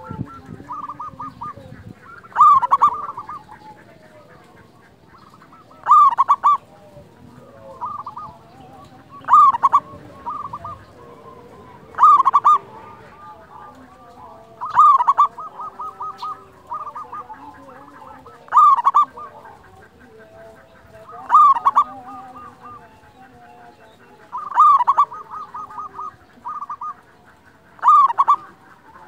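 Zebra dove (perkutut) singing its staccato cooing song, about nine phrases repeated roughly every three seconds. Each phrase opens with a loud cluster of notes and trails off in a quicker run of softer ones.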